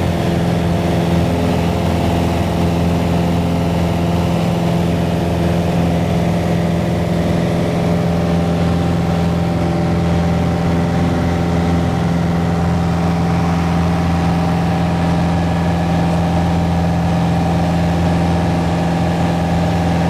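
Piper PA-28-161 Warrior's four-cylinder Lycoming engine and propeller droning steadily in flight, heard inside the cockpit.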